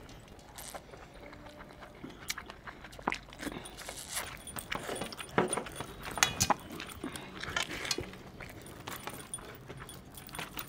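Close-up eating sounds of noodles being eaten by hand: wet chewing and lip smacking, with scattered short clicks throughout.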